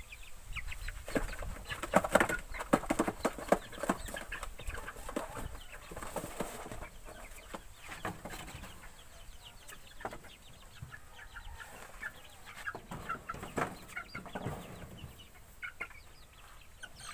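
Chickens clucking and chirping, with a run of sharp wooden knocks and rattles, loudest in the first few seconds, as a plank coop door is worked and a bird handled.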